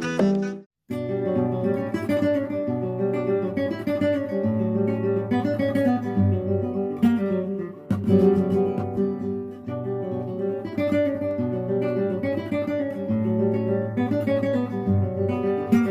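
Acoustic guitar music, plucked and strummed over a steady bass line, cutting out to silence for a moment just under a second in before carrying on.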